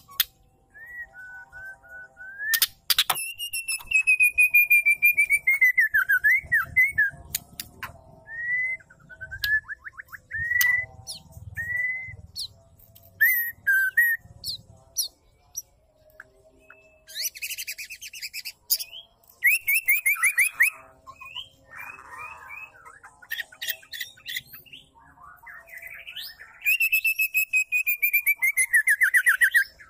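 Female white-rumped shama calling: short clear whistled notes, long rattling trills that slide down in pitch near the start and near the end, and a few harsh chattering bursts in the middle. This is the call keepers play to rouse male shamas to sing.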